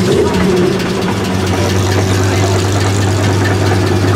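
Ferrari 330 GTO recreation's Tipo 209 V12 idling steadily.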